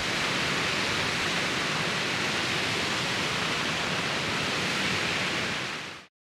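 Steady loud rush of falling water, an even hiss without any pitch, which cuts off abruptly about six seconds in.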